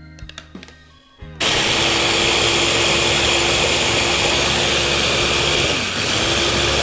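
Small electric press-top food chopper motor starting abruptly about a second and a half in and running steadily as it purées steamed cauliflower, with a brief dip near the end before it runs on. Light background music is heard before the motor starts.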